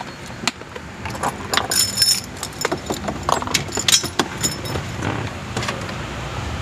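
Irregular clicks and knocks with light metallic jingling from hands handling a head unit and its dash trim in a car's centre console. The jingling is clustered about two seconds in and again near four seconds.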